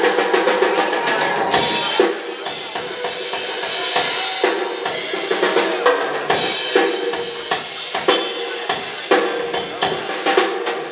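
Rock drum kit played live through a club PA: a dense, fast run of snare, bass drum and cymbal hits, with a sustained pitched tone ringing underneath. It is a drum solo.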